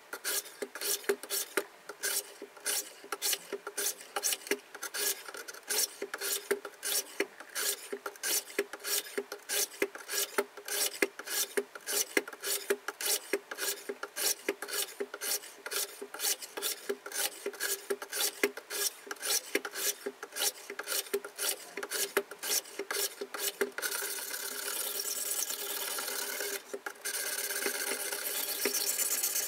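Diamond sharpening plates of a KMFS Rival guided sharpener rasping along both sides of a folding knife's edge at once, in quick even strokes a few times a second. Past the two-thirds mark the strokes run together into a near-continuous rasp, broken once briefly.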